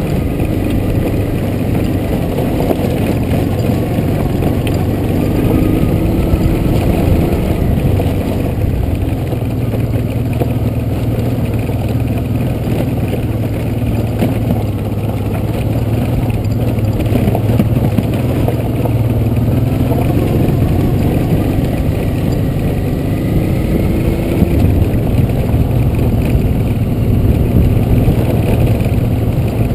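Honda Transalp's V-twin engine running steadily in a low gear as the motorcycle rides over a rough, stony dirt track, its note rising and falling slightly with the throttle.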